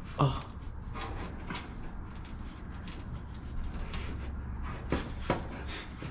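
A few light knocks and clicks of things being handled, twice about a second in and twice near the end, over a steady low hum.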